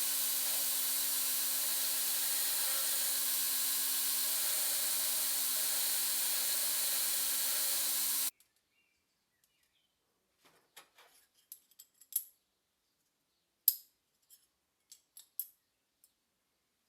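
Power tool in a knife-making workshop running steadily with an even hiss and hum, cutting off abruptly about eight seconds in. A few light clicks and taps of tools and metal being handled follow.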